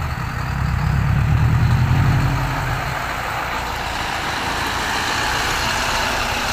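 Heavy truck engine running with a loud, low drone that fades after about three seconds into steady road noise.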